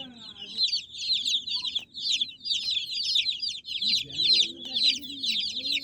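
A brood of baby chicks peeping without a break: many high, short, downward-sliding peeps overlapping in a dense chorus.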